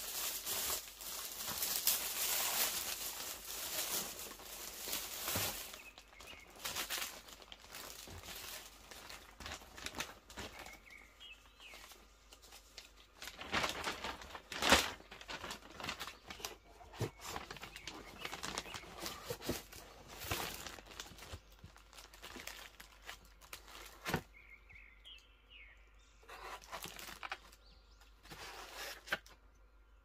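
Clear plastic packaging bags crinkling and rustling as they are handled and opened, in irregular bursts, heaviest in the first few seconds, with a few sharper crackles later.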